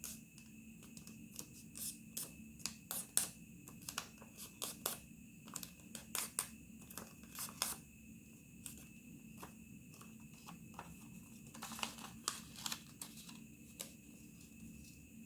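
Origami paper being folded and creased by hand: a run of short crinkles and rustles, thickest in the first half and again briefly later on, over a faint steady hum.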